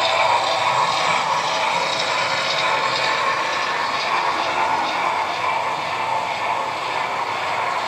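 HO-scale model freight train running along the layout's track, a steady running noise as the lumber cars roll past.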